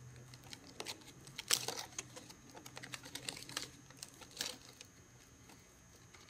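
Pleated aluminum corner flashing being bent and pressed into place by hand against an asphalt shingle: scattered light clicks and crinkles of the thin corrugated metal, sharpest about one and a half seconds in and again past four seconds, over a faint steady low hum.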